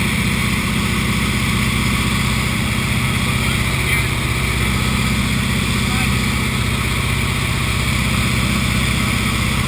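Small propeller plane's engine and propeller droning steadily, heard inside the cockpit.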